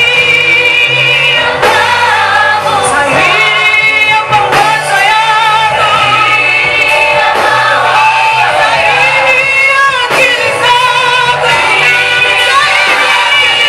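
Vocal group singing a Swahili worship song, voices wavering with vibrato over steady low accompaniment notes.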